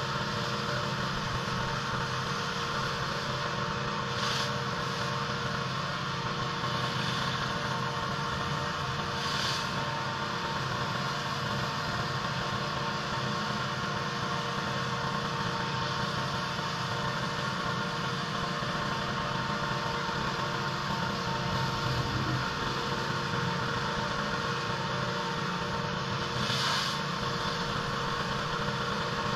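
Pressure washer running steadily: an engine hum under the hiss of the water spray, which swells briefly three times.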